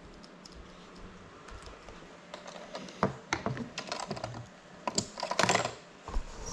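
Irregular clicks and knocks of a small FPV drone being handled on a tabletop, picked up by the GoPro mounted on its frame. It is quiet for the first couple of seconds, and the clicking is busiest about five seconds in.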